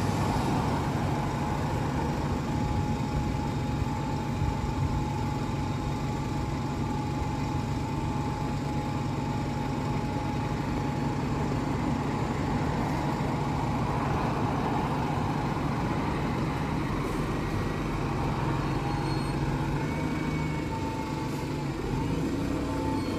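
London bus engine idling steadily while parked, a constant low hum with no change in speed.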